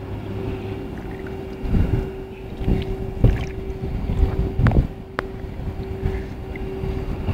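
Water sloshing and splashing around a big catla fish held at the surface, with a few low bumps from the handling and a sharp click about five seconds in. A steady low hum and wind on the microphone run underneath.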